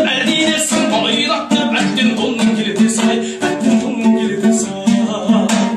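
Kazakh dombra strummed in a quick, steady rhythm, with a man singing a folk song over it.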